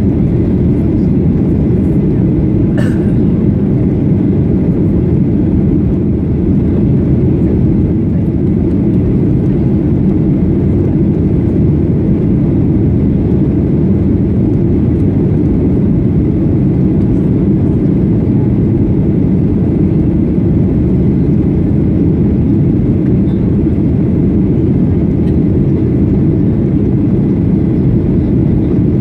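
Steady low roar of a Boeing 737-800 in flight, its CFM56-7B engines and the airflow heard inside the passenger cabin. A faint short click about three seconds in.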